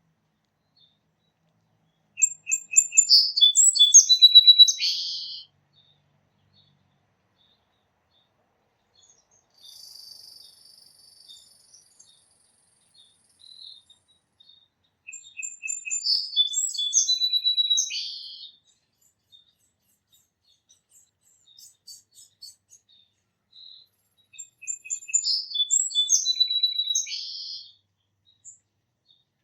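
A songbird singing the same complex song three times, each phrase about three and a half seconds long and made of quick repeated high notes running into trills, roughly ten seconds apart, with a few faint chirps in between.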